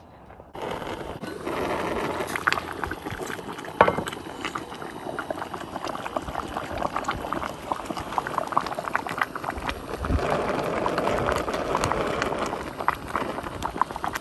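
Tomato stew base with mackerel pieces bubbling steadily in an enamelled pot, a dense crackle of small pops. Tongs move the fish through it, and there is one sharp knock about four seconds in.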